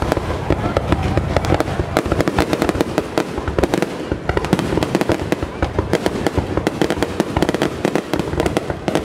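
Fireworks going off at close range: a dense, unbroken crackle of rapid pops and bangs as shells launch and burst overhead.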